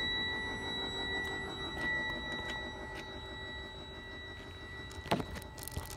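A steady high-pitched electronic warning tone from the truck cab, held without a break over a low rumble and fading slightly, with a sharp knock about five seconds in.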